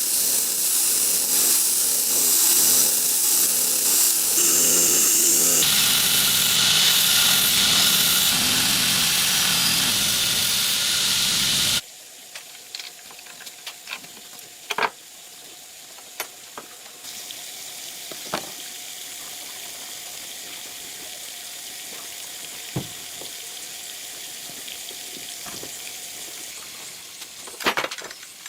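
A loud, steady hiss for about twelve seconds that cuts off suddenly, followed by much quieter crackling with scattered sharp clicks.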